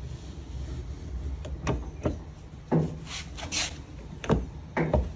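Metal knocks and short scrapes from the field housing of a 1952 Chevy truck starter motor being worked down over its armature by hand: a few irregular sharp clunks, loudest around three and four seconds in, over a low steady hum.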